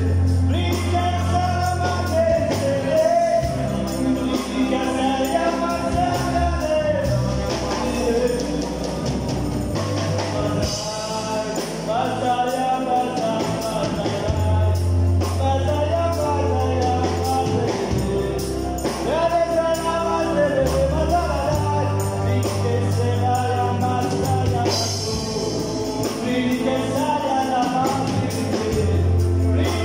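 Live gospel worship music: a man sings the lead into a microphone with backing singers, over a band with a sustained bass line and steady light percussion.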